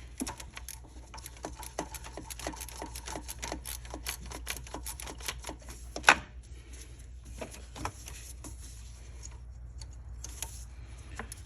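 Hand ratchet clicking in quick, even strokes while backing out a T25 Torx screw, with one sharp louder clack about six seconds in and then slower, sparser clicks.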